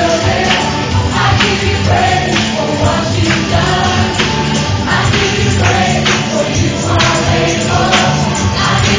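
Congregation singing a worship song together over amplified gospel-style music with a steady beat.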